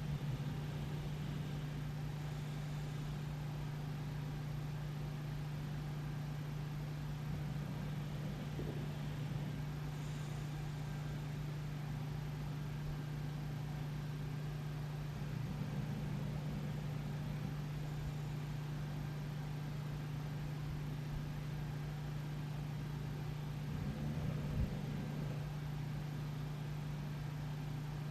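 Steady low household hum, like a running appliance, with a few faint short knocks or rustles on top, the loudest about 24 seconds in.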